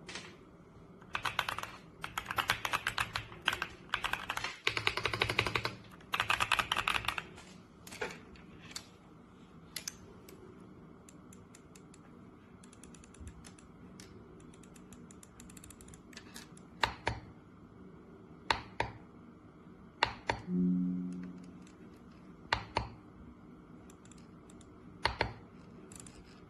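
Typing on an RK Royal Kludge S98 mechanical keyboard: fast runs of keystrokes for the first several seconds, then scattered single key presses. A short low hum sounds about twenty seconds in.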